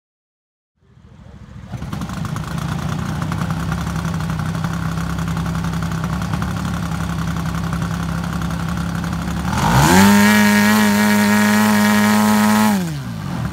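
A 40%-scale radio-controlled Piper Cub's engine and propeller idling steadily. About ten seconds in, during a ground run-up with the plane held down, the engine is opened up to a higher pitch, held for about three seconds, then throttled back to idle. The sound comes in after about a second of silence.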